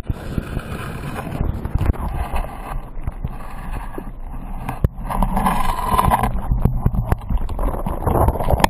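Muffled underwater noise from a camera submerged in a shallow river: low rumbling water against the housing with frequent knocks and clicks from handling, beginning abruptly as it goes under.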